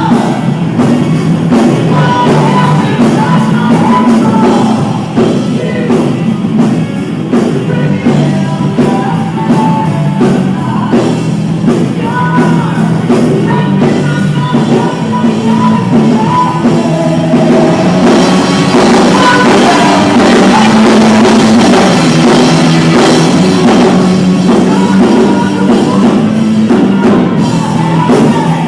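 Live pop-rock band playing with a singer, drum kit and guitar, recorded on a phone, so the sound is distorted. It gets fuller and louder from about 18 seconds in to about 24 seconds.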